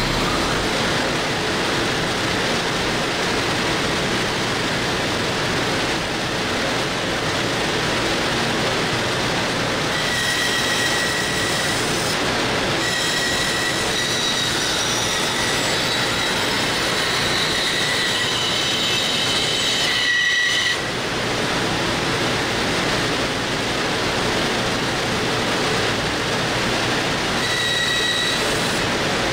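Band saw running steadily while its blade cuts a striped wooden cutting-board blank fed with a push stick. A high whine comes and goes while the blade is in the wood, mostly in the second half.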